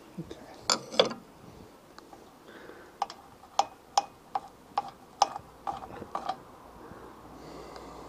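Sharp metallic clicks, about three a second for a few seconds, with a scrape about a second in: a tool working loose the fuel tap on a Seagull outboard motor's fuel tank.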